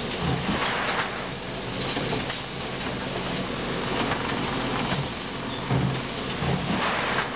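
Pacepacker paper-bag gusset-reforming machine running, with a steady mechanical hum and repeated clunks as its clamps and guides handle the bags. There is a short hiss near the end.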